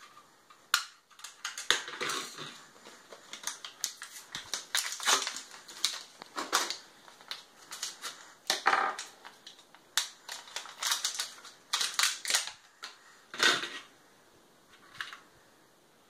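Irregular clicks, knocks and rattles of hard plastic as a toy RC car's steering-wheel-style transmitter is handled and set down on a worktop, with a screwdriver in use. A last small click comes near the end.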